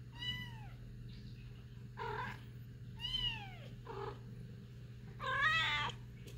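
Domestic cats meowing: a mother cat and her young kittens. There are two high mews that fall sharply in pitch, two shorter, lower meows between them, and a longer, wavering meow about five seconds in, which is the loudest.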